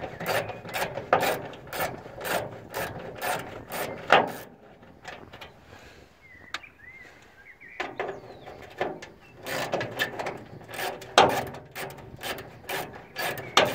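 Ratchet wrench with an 8 mm socket clicking as it works a grille retaining bolt loose, a steady run of clicks about two or three a second. The clicking stops for a few seconds about four seconds in, then starts again.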